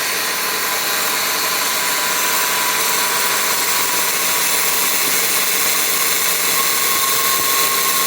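2017 Subaru Forester's AC compressor running under the hood with the engine on: a steady mechanical hiss and whir, with a whine that grows stronger near the end. The noise is getting louder, which the owner takes for a broken compressor.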